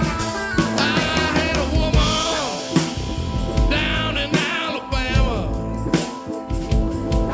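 Live rock band playing an instrumental passage of a blues-rock song: drum kit with bass drum and snare, electric bass, keyboards and guitar, with bending lead lines played over the groove.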